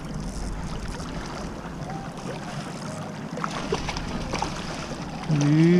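Steady outdoor wind and river-water noise around a small boat, with a hooked American shad splashing at the surface beside it a few seconds in. About five seconds in, a long held pitched tone starts and is the loudest sound.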